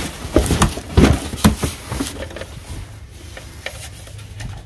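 Items being rummaged and lifted out of a cardboard box: a few knocks and clunks with rustling in the first two seconds, then quieter handling.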